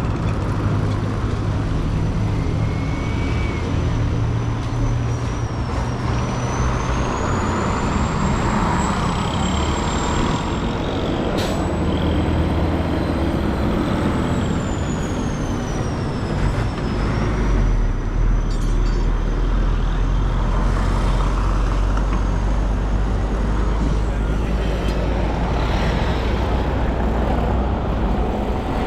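Busy street traffic close by, dominated by the steady low running of heavy vehicle engines. A thin high whine rises and falls over several seconds, and there is one sharp click about eleven seconds in.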